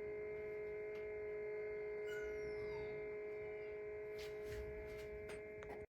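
Steady electrical hum made of several held tones, with a few light clicks and knocks near the end, then the sound cuts off abruptly.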